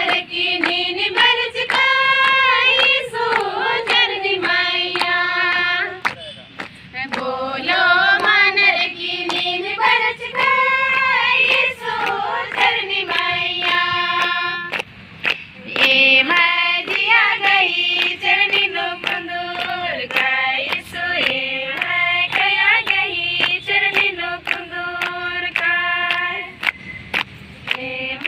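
A group of female and child voices singing a hymn to Jesus in unison, with steady hand clapping keeping the beat.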